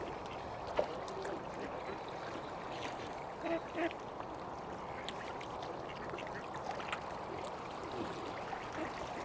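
Mallard duck quacking twice in quick succession about three and a half seconds in, over steady background noise.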